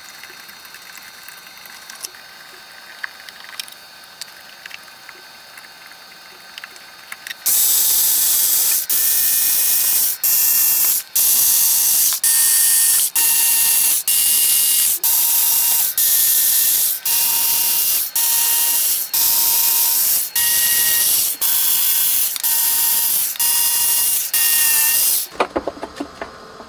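A small cordless electric screwdriver whirring in a long series of short runs, about one a second, backing screws out of the preamp's bottom plate. Before it starts there are only faint clicks of a hand screwdriver at a screw.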